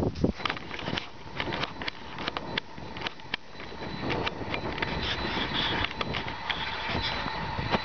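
Hand-held camera handling noise: irregular clicks and rustling, with a faint steady whine from the camera's zoom motor as it zooms in, stronger in the second half.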